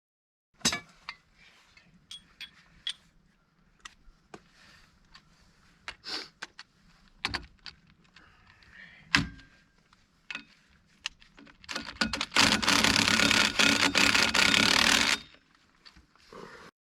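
Scattered metallic clinks and knocks of tools and parts being handled, then a loud steady hiss lasting about three seconds, starting about three-quarters of the way through.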